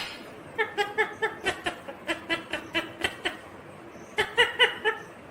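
Ringneck parakeet chattering in short, quick, laugh-like syllables, about five a second: a run of nearly three seconds, then a shorter burst near the end.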